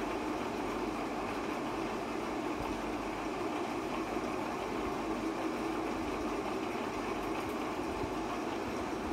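Steady mechanical hum and noise that holds even, with no change.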